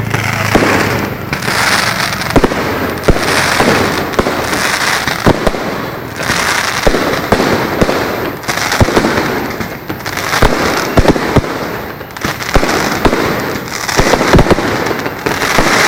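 Fireworks display going off continuously: a rapid string of sharp bangs and cracks with swelling waves of crackle and hiss every second or two.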